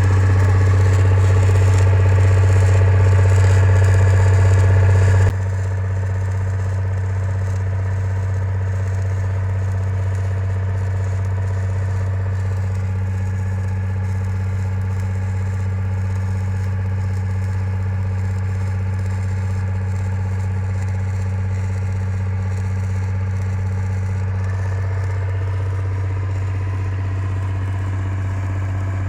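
An engine running steadily, with a strong low hum; about five seconds in it drops suddenly to a quieter level and keeps running evenly.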